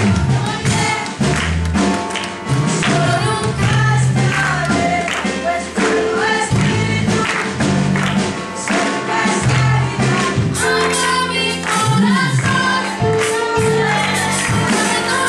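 Church choir singing a gospel song together over instrumental accompaniment with a steady beat.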